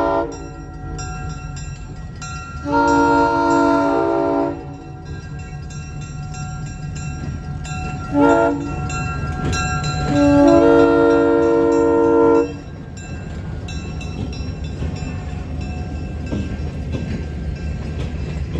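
Train horn sounding a chord of several tones in a long, a short and a long blast, finishing the long-long-short-long grade-crossing signal, over the steady low rumble of the train.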